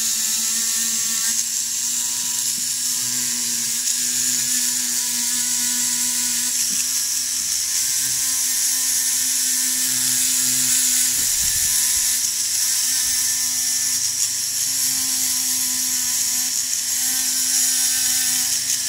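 Dremel rotary tool running steadily with a sanding drum pressed against camphor laurel wood, a continuous whine with a hiss from the drum sanding the carving.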